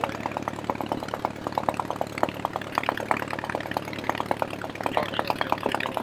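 De Havilland Tiger Moth's four-cylinder inverted inline Gipsy Major engine idling: a steady low hum under a rapid, uneven string of exhaust pops.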